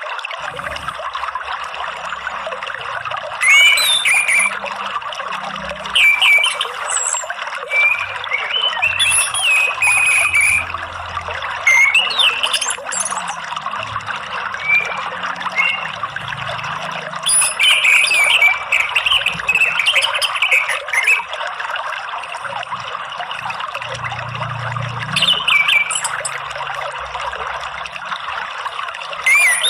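Orange-headed thrush (anis merah) singing in repeated bursts of varied, rapid phrases with pauses between. Underneath is a steady rush of running water.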